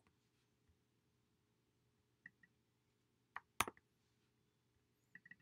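Near silence broken by a few faint, short computer clicks: a pair a little past two seconds in, a louder pair about three and a half seconds in, and a small cluster near the end.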